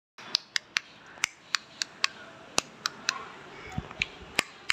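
A series of sharp, irregularly spaced clicks, about a dozen in under five seconds, over a faint steady hiss, with one dull low thud just before the four-second mark.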